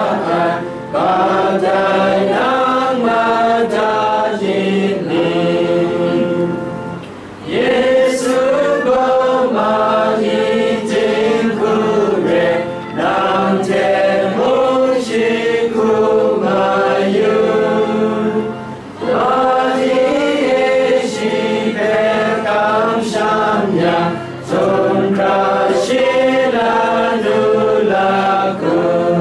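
A group of voices singing a hymn together, line by line, with brief pauses between the lines.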